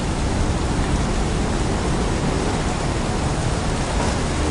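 Steady, even rushing hiss with a rumble underneath and no distinct events: a white-noise ambience track.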